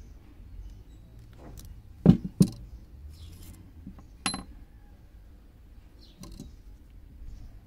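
Clicks and clinks of small metal parts being handled: pliers, a thin metal tube and a copper wire coil. A pair of sharp clicks comes about two seconds in, a clink with a short metallic ring a little past four seconds, and a fainter click a little after six seconds.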